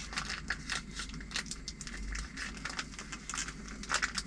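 Plastic food pouch crinkling and crackling as it is handled and squeezed open over a plate: a rapid, irregular run of small crackles.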